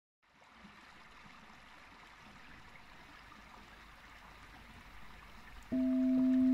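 Faint running water of a shallow stream flowing around a rock. Near the end a singing bowl is struck and rings with a steady low tone and a fainter higher overtone, much louder than the water.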